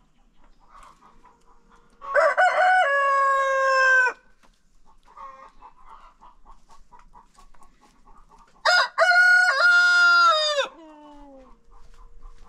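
Roosters crowing twice, each crow about two seconds long, the first about two seconds in and the second near the end, which trails off in a falling note. Hens cluck softly between the crows.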